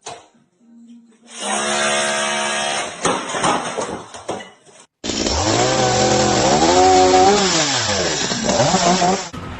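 A motor running at a steady pitch, which dies away. After a hard cut, a motor revs up and eases back down.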